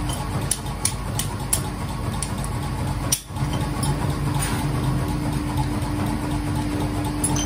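Steady hum of workshop machinery running, with a string of light, irregular metallic taps from a hand hammer striking hot steel on an anvil block in the first few seconds.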